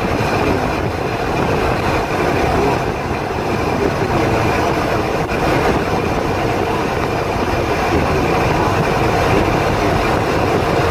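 Steady engine and road noise of a moving truck, a dense, unbroken rumble.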